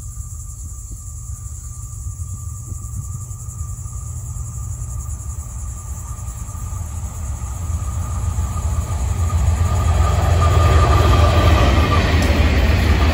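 Approaching Florida East Coast freight train, its diesel locomotives' low rumble growing steadily louder as they come near and pass, loudest from about ten seconds in. A thin steady high tone runs alongside.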